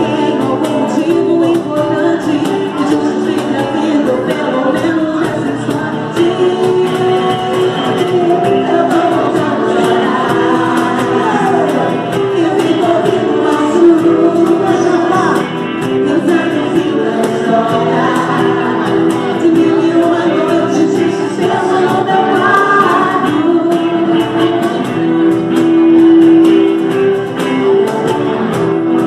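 A live band playing a song with singing: electric guitar and keyboard under lead vocals, over a steady beat.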